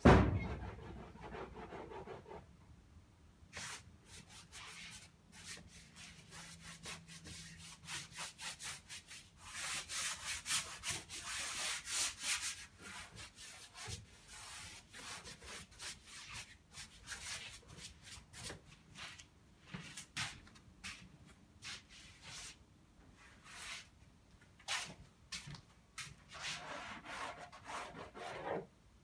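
A paintbrush scrubbing oil paint onto canvas in quick, repeated strokes, busiest around ten to twelve seconds in and again near the end. A loud knock right at the start.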